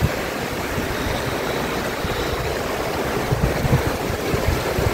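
Fast mountain creek rushing over rocks: a steady, full water rush, with a few low bumps on the microphone in the second half.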